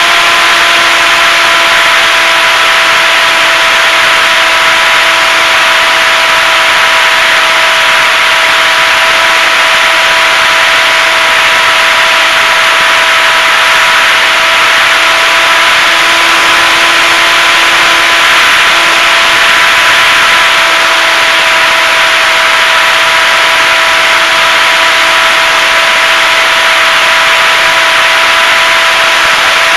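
HobbyZone Super Cub RC plane's electric motor and propeller running at a steady cruise throttle: an even whine over loud wind rush, picked up by a camera mounted on the airframe.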